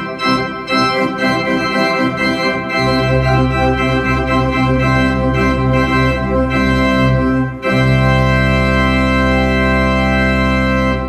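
Church organ playing loudly. Quick moving notes give way about three seconds in to sustained chords over a deep pedal bass. After a brief break, a final chord is held and then released: the closing cadence of the piece.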